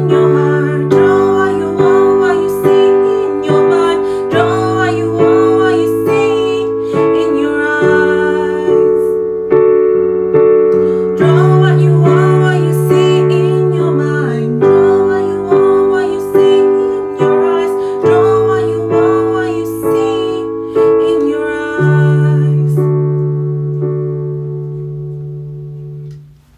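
Electric piano playing the song's closing chord accompaniment, chords struck at an even pulse over slowly changing bass notes, dying away just before the end.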